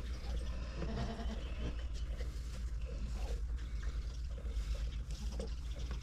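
A dairy goat gives one short, low bleat about a second in.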